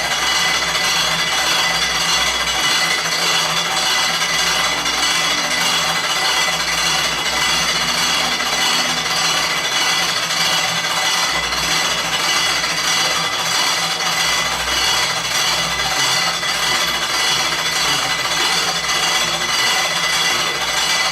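Randers 1932 appliance running with a loud, continuous grinding, rasping noise under a steady high-pitched whine: a fault noise that five service repairs have not cured.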